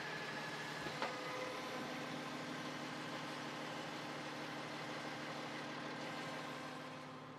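Heavy dirt-delivery truck's engine idling steadily, with a single sharp click about a second in.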